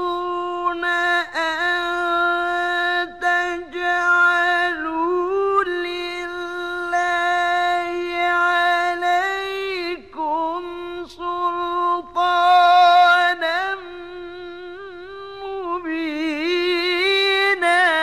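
Quranic recitation by a male qari in a high register, chanted melodically: long, sustained notes with ornamented turns, in several phrases with brief breaths between them.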